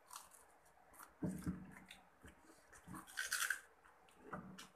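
A person eating fried chicken: chewing and mouth sounds in short, irregular bursts, with a louder burst about a second in and another near the middle.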